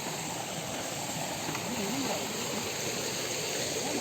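Steady rushing of a stream flowing over rocks, a constant even hiss of water, with faint voices under it.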